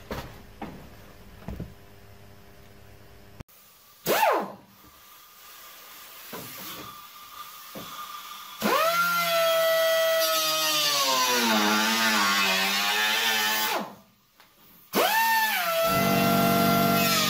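Light metal knocks and handling, then an electric drill running for about five seconds with a whine whose pitch sags as it bites into sheet metal. It stops, and a similar pitched whine starts again near the end.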